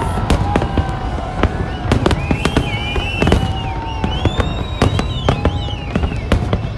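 Fireworks display: many aerial shells bursting in quick, irregular succession, several bangs a second over a constant low rumble, with high whistling tones gliding above them.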